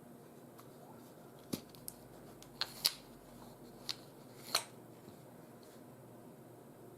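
About six short, sharp mechanical clicks over about three seconds, typical of an Umarex Glock 17 Gen 5 9 mm P.A.K. blank pistol being handled.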